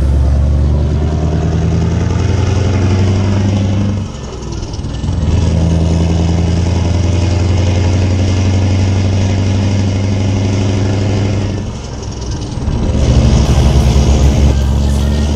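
Heavy truck's diesel engine running under load as the rig drives, heard close from the back of the trailer with road and wind noise. The engine note drops away briefly twice, about four and twelve seconds in, then comes back.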